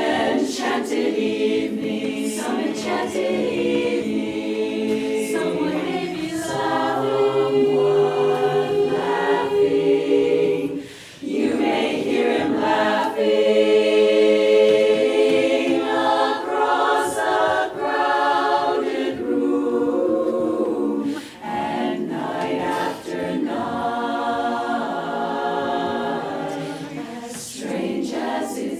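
An a cappella barbershop chorus singing in close harmony, holding sustained chords with brief breaths between phrases about eleven and twenty-one seconds in.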